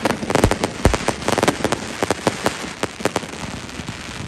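Fireworks going off: a dense run of crackling pops, with two deep booms about half a second and a second in, the crackle thinning toward the end.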